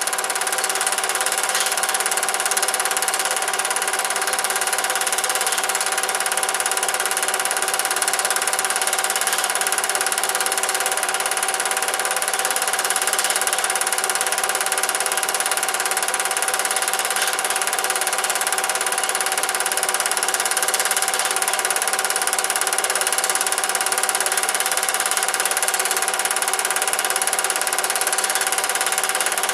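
Cine film projector running: a steady mechanical whirr and rapid clatter from its motor and film mechanism, unchanging throughout.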